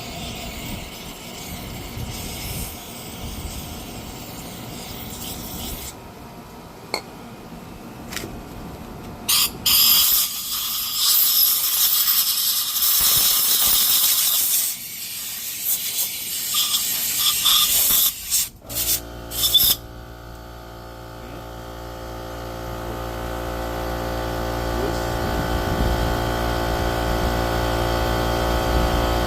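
Handling and scraping on brake parts, then repeated loud hissing blasts of compressed air from an air blow gun. About two-thirds of the way in, a motor starts running with a steady hum that grows louder.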